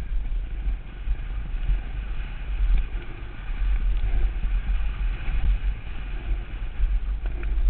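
Wind buffeting a helmet-mounted GoPro's microphone during a fast mountain-bike descent, a steady deep rumble with the hiss of tyres rolling over a dirt trail and a few faint knocks from the bike.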